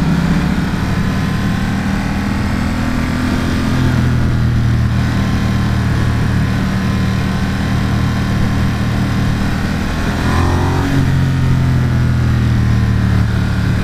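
Ducati XDiavel's 1262 cc L-twin engine running steadily under way, heard from the rider's helmet with wind noise over it. The engine note changes briefly about ten seconds in.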